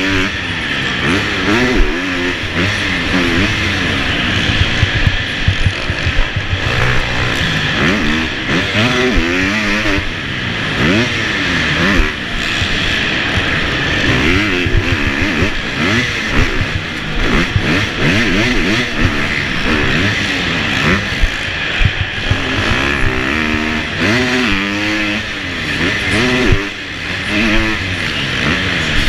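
Supercross motorcycle engine heard from a camera mounted on the bike, revving hard and dropping back over and over as it accelerates, shifts and rolls off around the track.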